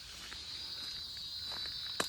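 Steady high-pitched drone of forest insects, growing louder about halfway through, with a few faint footsteps of someone walking.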